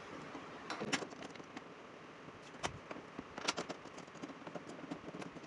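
Irregular light clicks and knocks of hand tools and screws being handled while body screws and bolts are refitted on a scooter's plastic panels, the sharpest about a second in and around three and a half seconds in.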